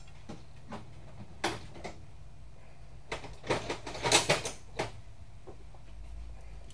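Handling noise: a few light clicks, then a cluster of rattling and scraping clicks about three to five seconds in, over a faint low hum.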